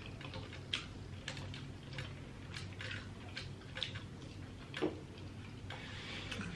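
Close-miked eating: scattered soft clicks and smacks of chewing seafood, about one or two a second, over a low steady hum.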